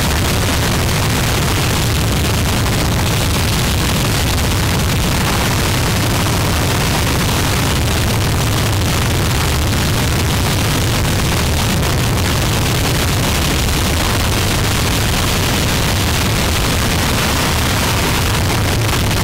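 Harsh noise music: a loud, unbroken wall of distorted noise, heaviest in a deep rumble, with a dense hiss on top and no beat or melody.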